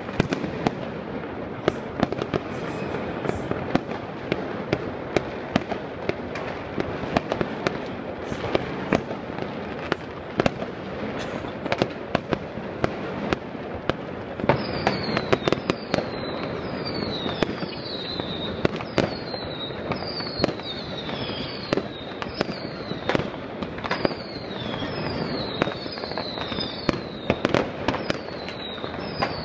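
Many fireworks and firecrackers going off across a city at once: a dense rumble and crackle with frequent sharp bangs. About halfway through, a high falling whistle starts repeating over it, roughly once a second.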